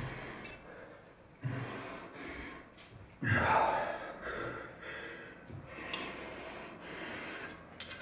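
Heavy breathing of people getting their breath back after hard physical exertion: a series of loud breaths in and out, the loudest about three seconds in.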